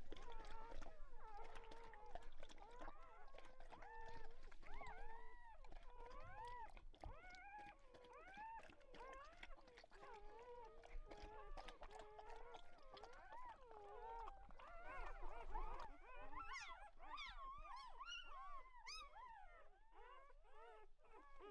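Newborn Weimaraner puppies squeaking and whimpering: many short, overlapping cries that rise and fall, with sharper, higher squeals near the end. Scattered soft clicks run underneath.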